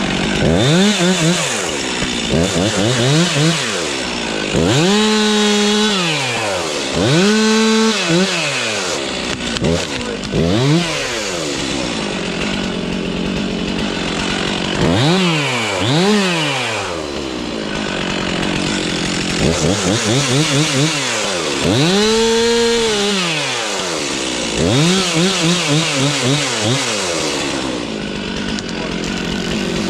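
Gas chainsaw revving up and down again and again, about ten times, its pitch climbing and then dropping back each time, as in cutting through wood.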